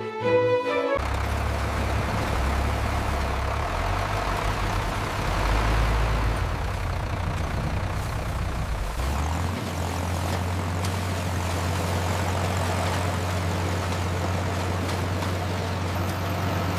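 Heavy engine, most likely the tractor's, running with a steady low rumble under a rushing hiss; the rumble settles onto a steadier, slightly higher drone about nine seconds in.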